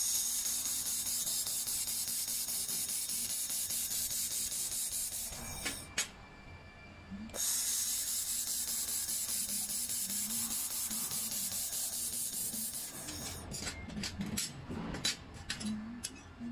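Handheld QCW fiber laser welder working on 2 mm stainless steel: a steady high hiss while the weld runs, in two passes of about five seconds each with a short break and a click between them. Near the end the hiss gives way to scattered short clicks and taps as the gun and workpiece are handled.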